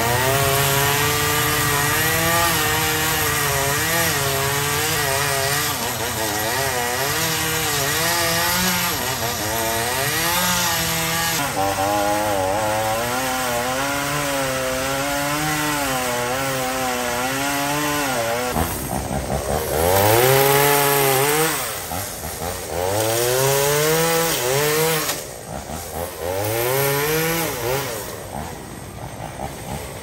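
Two-stroke chainsaw cutting through a fallen tree trunk, its engine pitch wavering up and down under load. From about two-thirds of the way in it is revved up again and again in quick rising blips between cuts.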